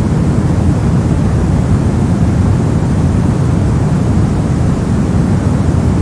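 Steady soft white noise for sleep, heavy in the low end and dull rather than hissy, with no changes.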